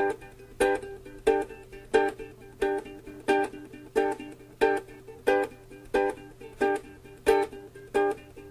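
Music: a single acoustic string instrument strummed in a steady rhythm, one chord strum about every two-thirds of a second, each ringing out before the next.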